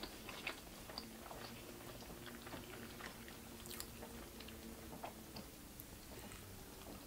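A person chewing a mouthful of hamburger with her mouth closed: quiet wet chewing with irregular small clicks and smacks, over a faint steady hum.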